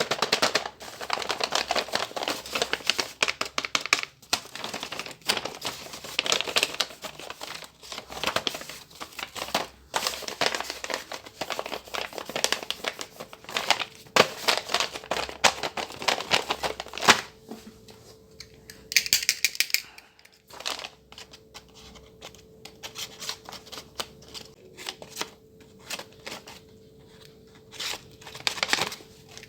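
Paper and tape handled close to the microphone: crinkling, tearing and quick clicks and taps of a paper blind bag being opened. The sound is dense and busy for about the first half, then thins to scattered taps and rustles over a faint steady hum.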